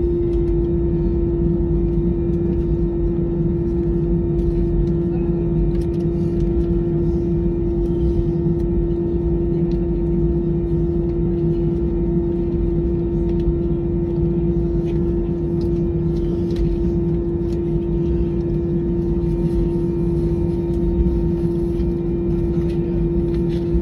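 Cabin noise of an Airbus A320-216 taxiing, heard from a seat over the wing: its CFM56 engines running at low taxi power as a steady hum with one held drone tone over a low rumble.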